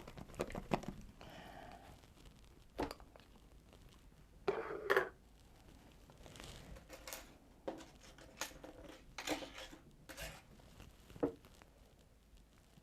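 Plastic container and bag handling: scattered clicks, knocks and crinkles as Kool-Aid-coated fruit is opened up and handled, with the loudest cluster of rustling about halfway through.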